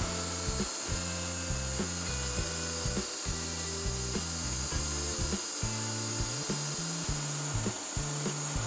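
Background music with a stepping bass line and a regular beat, over the steady high hiss of a portable band sawmill cutting a log.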